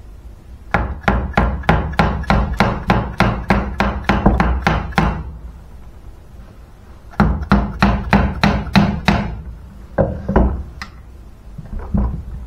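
Plastic-faced mallet tapping the crankcase of a Simson Schwalbe moped engine to work the stuck case halves apart. It strikes about five blows a second in two runs with a pause between, then a few single taps near the end.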